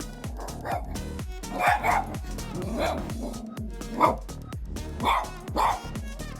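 A Shiba Inu barking about six times in short bursts, the loudest bark about four seconds in, over background music with a steady beat.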